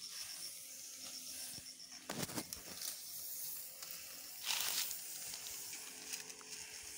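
Knapsack sprayer's wand nozzle hissing steadily as it sprays a fine herbicide mist over weeds. There are two louder swishes, about two seconds in and again a few seconds later.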